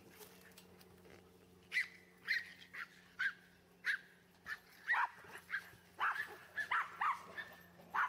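Small dog barking in short, high-pitched yaps, starting about two seconds in and coming faster and more often in the second half.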